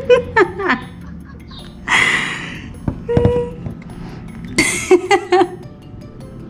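A man's voice over a FaceTime call through a phone's speaker, garbled and hard to make out, in short broken bursts with hissy breaks. A brief steady tone sounds about three seconds in.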